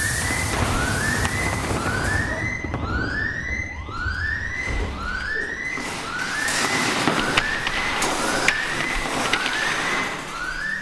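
A rising alarm whoop repeating about once a second, over scuffling and the clatter of metal wire shelving racks knocked over in a fight, with a couple of sharp hits near the end.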